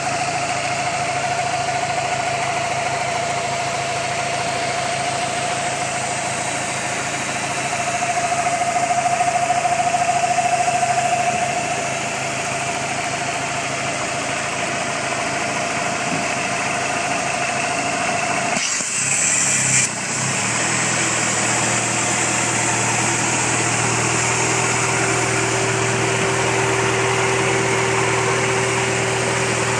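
Dodge SRT-4's turbocharged 2.4-litre four-cylinder engine idling with a steady whine over it, the strange noise being troubleshot. The whine swells for a few seconds. About two-thirds through, the sound briefly breaks up, and the whine then comes back at a lower pitch.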